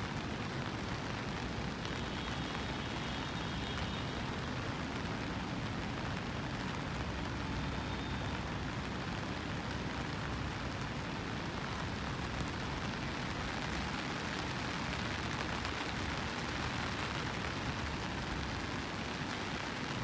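Steady rain falling, an even hiss with a low rumble beneath it.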